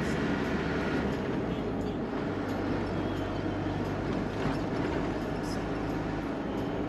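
Steady running noise of a vehicle on the move: a constant low hum with an even rumble.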